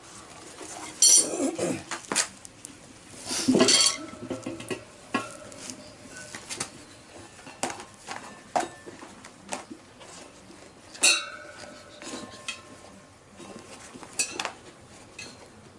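Motorcycle inner tube being worked by hand into a tyre on a spoked wheel: rubber rubbing and shuffling, with scattered metallic clinks and knocks from the rim and a few louder clacks.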